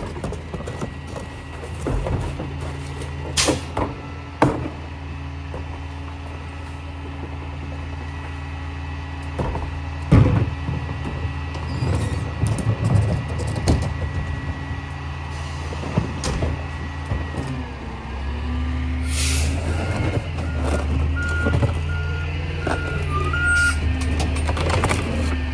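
Rear-loading garbage truck's diesel engine idling with a faint steady whine, and several loud clanks as trash cans are handled at the hopper. About two-thirds of the way through the engine speeds up, and a backup beeper then sounds about five times.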